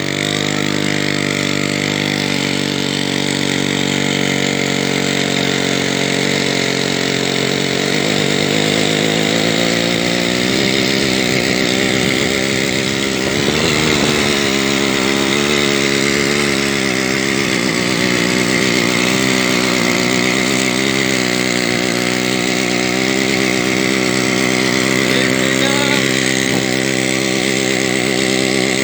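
A homemade trike's Ural chainsaw engine, a small two-stroke single, running loudly: steady at first, then its pitch wavers up and down from about eight seconds in as the throttle changes while the trike is ridden.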